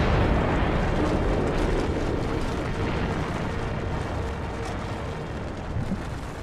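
Volcanic eruption rumbling: a dense, deep roar of noise that fades slowly over several seconds.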